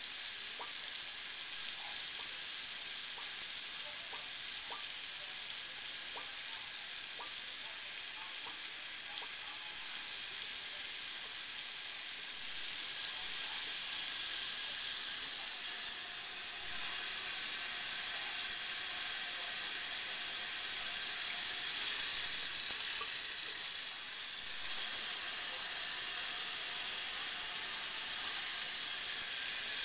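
A thin stream of tap water running from a bathroom faucet into a ceramic sink basin, a steady hiss, with faint light ticks in the first several seconds.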